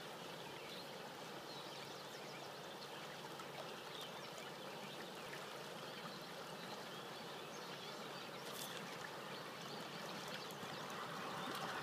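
Steady rush of river water flowing over a shallow riffle.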